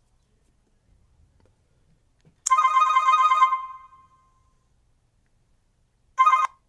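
Short chime-like ringtone from a Sony Ericsson Xperia X10 mini pro (U20a): a single bright chord strikes about two and a half seconds in and rings out, fading over about two seconds. Near the end the same chime strikes again and is cut short.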